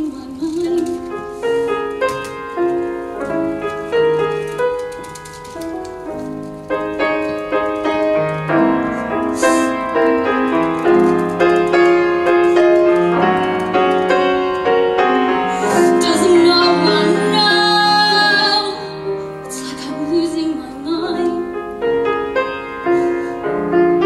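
Piano playing, with a woman singing in places over it.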